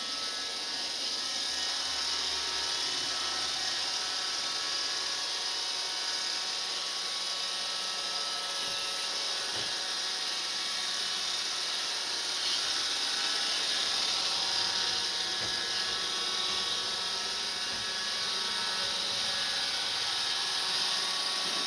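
Roomba robot vacuum cleaner running: a steady whirring hiss from its fan and brushes with a high motor whine, and a few soft knocks along the way.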